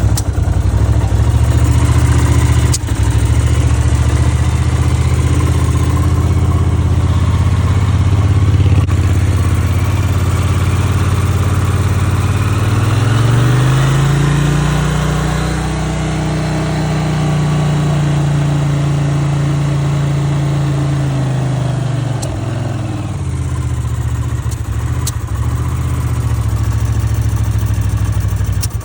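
Honda CX500 V-twin engine idling, then revved up about midway, held at a higher speed for several seconds and let drop back to idle. A few sharp pops break in here and there: the engine sneezing.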